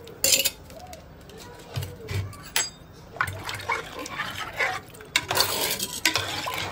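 A steel ladle stirring mutton trotter soup in an aluminium pressure cooker pot: liquid sloshing, with the ladle clinking against the pot a few times.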